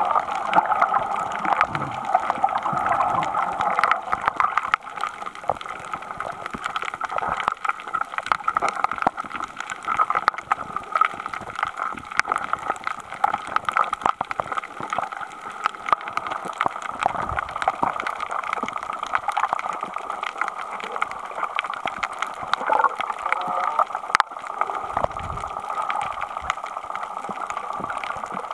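Water heard underwater through the camera: a steady, muffled gurgling rush with many small clicks scattered through it.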